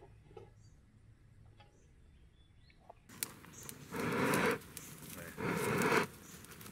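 Wooden hand bellows pumped into a small wood fire burning in a galvanized bucket: two breathy puffs of air in the second half, each about half a second long and about a second and a half apart.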